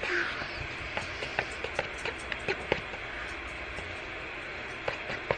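Scattered small clicks and taps, irregularly spaced, over quiet room noise.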